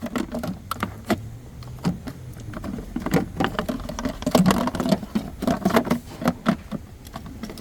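Irregular clicks, taps and light knocks of car interior parts being handled and moved.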